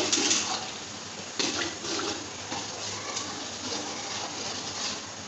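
Water poured from a jug into a large aluminium pot of frying meat and okra, with a steel ladle stirring and knocking against the pot; loudest right at the start and again about a second and a half in.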